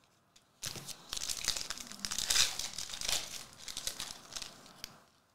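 A foil trading-card pack wrapper being torn open and crinkled by hand: a dense crackling that starts about half a second in and stops shortly before the end.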